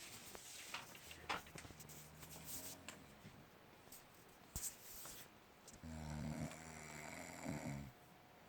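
A sleeping person snoring: two low buzzing snores, a fainter one about a second and a half in and a louder, longer one about six seconds in, with a few short clicks between them.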